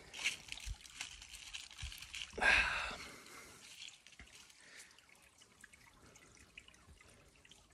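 Faint trickling water, with two brief louder sounds: a short one at the start and a longer one about two and a half seconds in.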